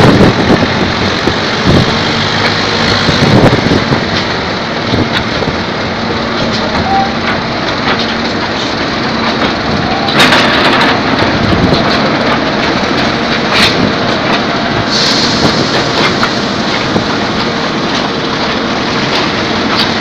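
Heavy construction machinery running: a steady engine hum under rough, continuous mechanical noise, with a few sharp knocks.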